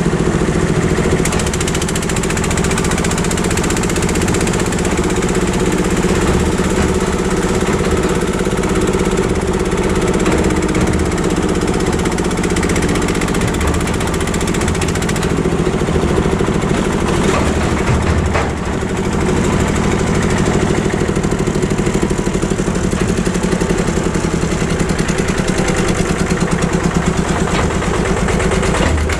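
Old tractor's engine running steadily, with an even, fast pulsing beat, as the tractor drives along a gravel track.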